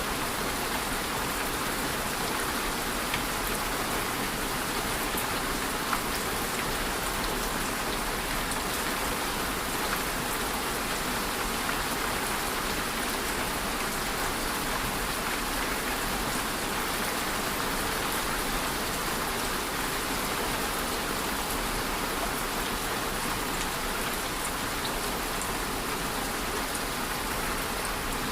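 Steady rain falling, an even hiss of many drops with a few separate drop ticks standing out now and then.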